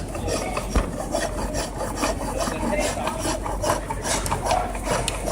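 Turning tool scraping and cutting wood on an ancient Chinese hand-powered reciprocating lathe, in a run of short rasping strokes.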